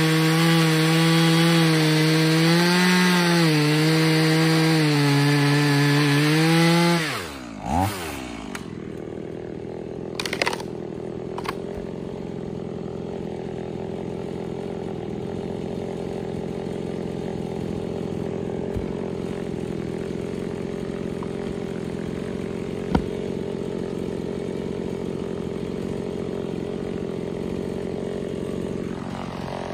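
Stihl MS 180 C-BE single-cylinder two-stroke chainsaw at full throttle cutting through a large log round, its pitch wavering under the load. About seven seconds in it drops to idle and idles steadily, with a couple of knocks soon after and another later on, then revs up again at the very end.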